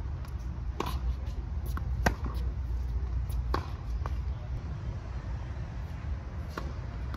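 Tennis ball struck by rackets and bouncing on a hard court during a rally: sharp pops a second or two apart, the loudest about two seconds in. A steady low rumble runs underneath.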